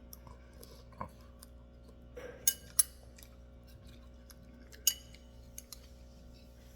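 Spoon clicking against a bowl while eating cereal with milk: a handful of sharp, separate taps a second or more apart.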